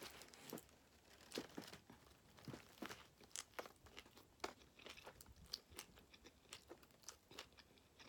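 Faint, close-miked chewing: irregular soft crunches and mouth clicks of someone eating.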